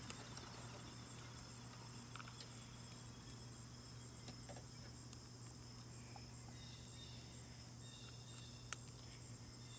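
Near silence: faint outdoor background with a steady low hum and a few small clicks, one sharper click near the end.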